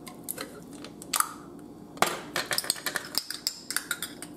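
The lid of a glass jar of minced garlic is twisted off, then a metal spoon clinks and scrapes against the inside of the glass jar in a run of quick clicks, with a sharper knock about two seconds in.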